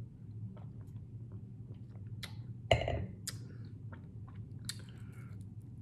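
Chewing and mouth sounds of someone eating, a scatter of small wet clicks over a steady low hum, with one sharp knock about two and a half seconds in.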